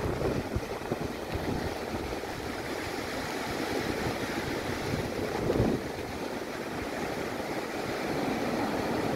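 Surf breaking and washing up a sandy beach, with wind buffeting the microphone. One louder wave rushes in a little past halfway.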